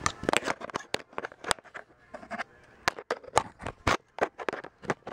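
Irregular clicks, knocks and rubbing close to the microphone as the camera is handled and fiddled with.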